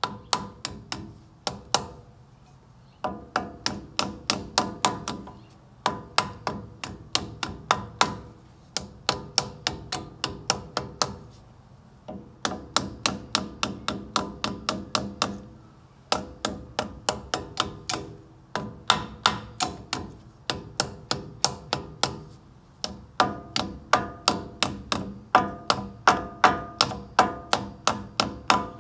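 Hand mallet with a white face striking the metal of a front wheel hub and steering knuckle. The blows come in quick runs of about three to four a second, broken by short pauses, and each blow leaves a brief metallic ring.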